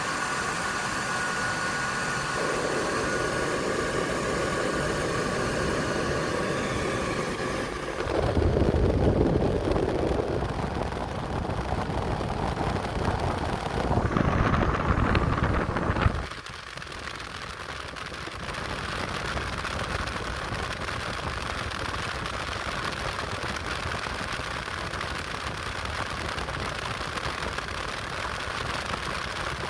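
Small single-inlet centrifugal blower fan running, a steady whir and rush of air. Twice the sound swells into a loud low rumble for about two seconds, then settles back to an even rush.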